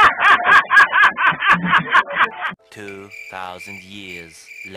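A man laughing hard in rapid, rhythmic bursts, about five a second, which cut off about two and a half seconds in. A deep male voice then speaks slowly over a faint steady tone.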